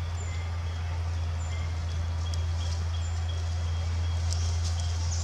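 A steady low hum, with faint, short, high-pitched chirps now and then.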